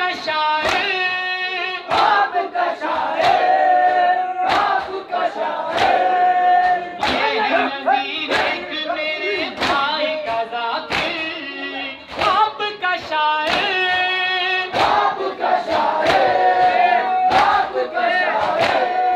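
Men chanting a Muharram nauha (mourning lament) in chorus, kept in time by the slaps of hands striking chests in matam, about one and a half strikes a second.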